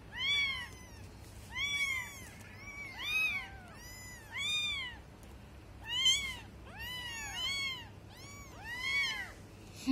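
Young kittens mewing: a run of about a dozen short, high-pitched mews, each rising then falling in pitch, coming every half second to a second.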